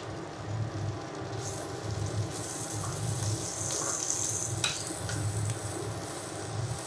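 Chopped onion and capsicum sizzling in oil in a frying pan over a high flame, stirred with a metal spatula that gives a sharper scrape about two thirds of the way through. A low hum swells and fades in a slow, regular beat underneath.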